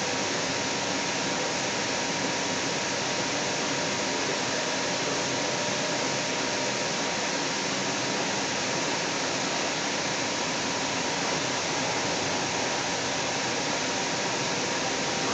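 Steady rushing noise inside a moving Link light rail car (Kinkisharyo low-floor vehicle) running between stations, with a faint steady whine.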